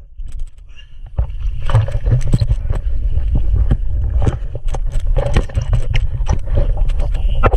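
Water splashing and sloshing against a Sea-Doo Spark jet ski's hull as a rider climbs aboard from the water, with many short splashes and knocks over a steady low rumble. It grows louder about a second in.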